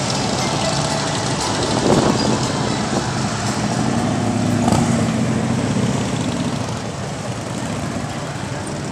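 Harley-Davidson V-twin motorcycles running as they ride slowly past. One engine grows louder about four seconds in and fades after about six seconds.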